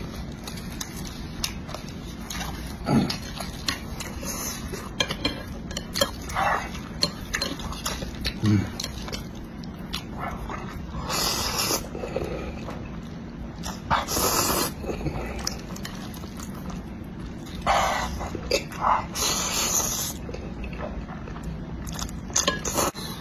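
Close-miked mouth slurping and chewing spicy instant noodles: wet smacking and small clicks, with several loud, long slurps in the second half.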